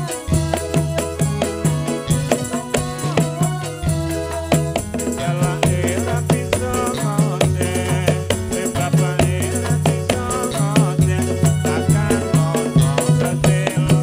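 Javanese Ndolalak dance accompaniment: hand drums and jingling rattle-like percussion in a steady rhythm over a repeating low bass line and a melody.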